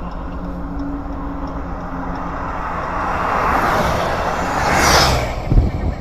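Road traffic: a steady low rumble, with a vehicle passing by whose rush swells to a peak about five seconds in and falls away. A short low thump follows just after.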